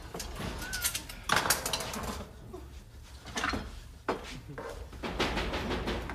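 Scattered knocks and clatter of kitchen things being picked up and handled at a counter, including a wooden knife block full of knives.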